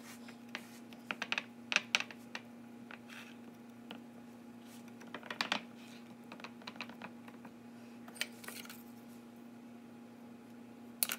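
Scattered light clicks and taps, with brief rustles, from fingers pressing raw pie dough into a pie pan and working it against the rim. A faint steady hum runs underneath.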